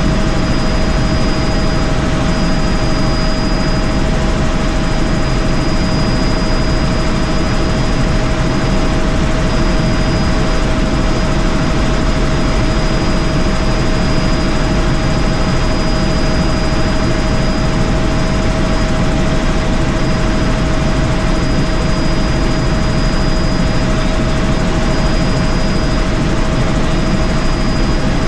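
Helicopter in flight heard from inside the cabin: a steady, loud rush of rotor and engine noise with a constant whine running through it.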